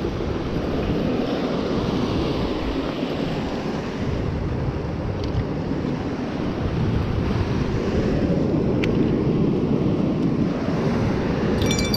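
Steady rush of ocean surf breaking on rocks, mixed with wind buffeting the microphone. A few light clicks come near the end.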